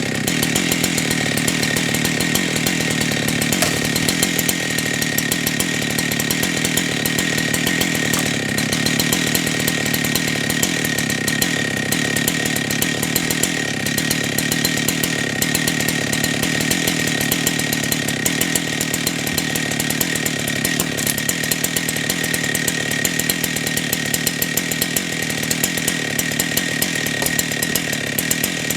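Husqvarna 365 two-stroke chainsaw running steadily at high revs, cutting logs for firewood.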